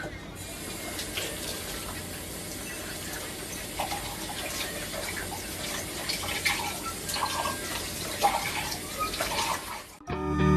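Steady rush of running water, with scattered small clicks and knocks; it cuts off suddenly near the end.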